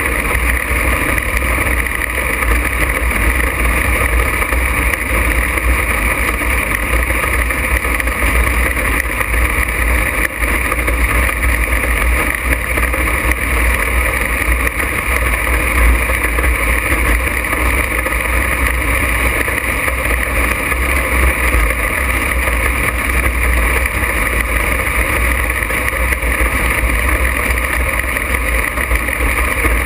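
Open-wheel dirt-track race car's engine running steadily at speed, heard on board from the cockpit, with a constant low rumble and no marked revving or lifting.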